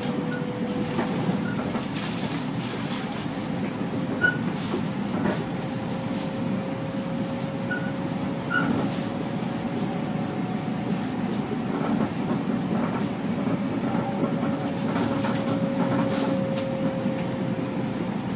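Steady rumble heard from inside a Long Island Rail Road electric commuter train car, with a faint steady whine and a few scattered light clicks.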